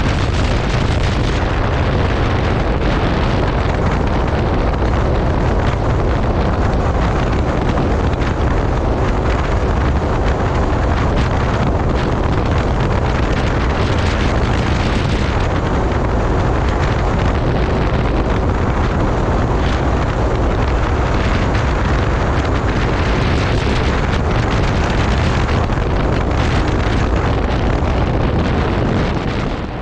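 Heavy wind buffeting on the microphone mixed with rushing water and the engine of a Sea-Doo 300 personal watercraft running at speed, steady throughout and fading out near the end.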